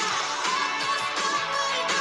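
Recorded song playing, with a steady beat and no talking over it.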